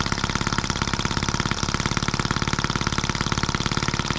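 Scale-model Atkinson-cycle engine running a little fast but well, its firing beating out a rapid, even pulse.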